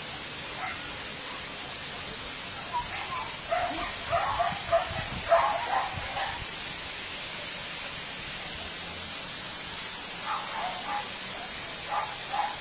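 A dog barking in two runs of short barks, the first a few seconds in and the second near the end, over a steady hiss.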